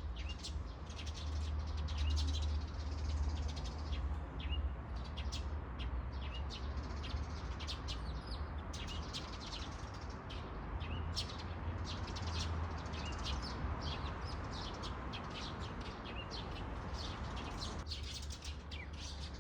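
A large flock of small birds chirping, many calls overlapping in a dense, continuous chatter. A steady low hum runs underneath.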